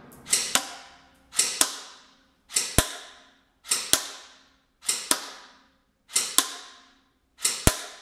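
Cyma CM.121 Gen 2 electric airsoft pistol fired in semi-automatic, seven single shots about a second apart, each trailing off briefly. A sharp smack follows each shot by about a quarter second as the BB strikes the paper target on its styrofoam backstop.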